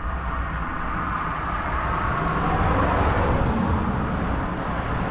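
Road traffic: a car passing, its tyre and engine noise swelling and then easing.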